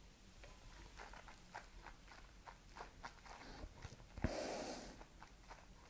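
Mouth sounds of a person tasting whisky: faint wet clicks and smacks as the spirit is worked around the mouth, then about four seconds in a sharp breath out through the nose lasting under a second.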